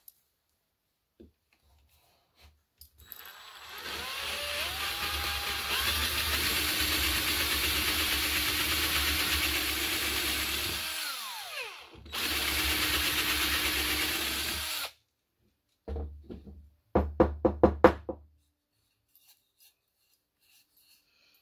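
Cordless drill with a 5/32-inch twist bit boring a hole into a wooden board: the motor runs steadily for several seconds, stops briefly, runs again for a few seconds, then comes a quick run of short, louder bursts.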